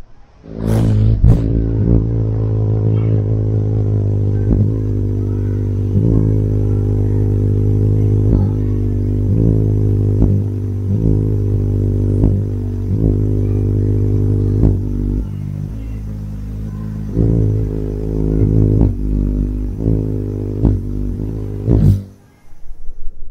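Hummingbird's wings humming as it hovers to feed: a steady low buzz with many overtones that wavers a little in pitch as the bird shifts position. There are a few sharp clicks near the start and one near the end.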